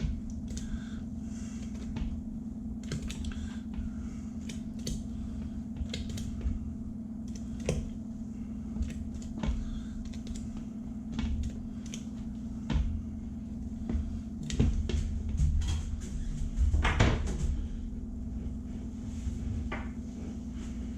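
Scattered soft knocks and clicks as lumps of dumpling dough are dropped by hand, one or two at a time, into hot broth in an Instant Pot, over a steady low hum. The knocks come a little thicker near the end.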